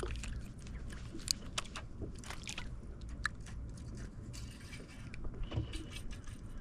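Irregular small clicks and scrapes from fishing tackle being handled on a boat, over a steady low rumble.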